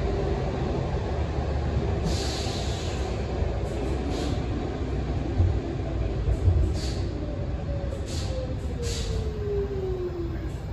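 C14 metro train heard from inside the car at floor level: a steady low running rumble with several short hisses, and in the last few seconds a traction-motor whine falling steadily in pitch as the train slows.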